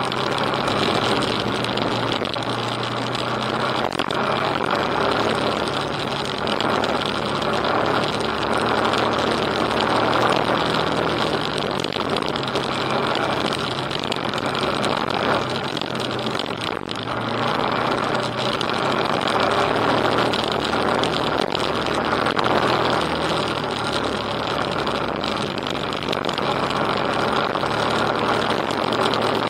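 Motorcycle engine running steadily while riding a gravel track, mixed with constant wind and tyre noise.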